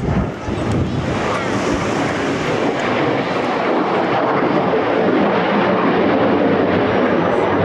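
BAE Hawk T1 jet trainer flying past with its gear down, its Adour turbofan making a steady, rushing jet noise that grows slightly louder.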